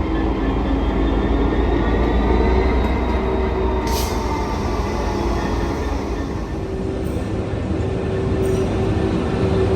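Train running past at close range: a loud, steady running noise with a few faint whining tones, and a sharp tick about four seconds in.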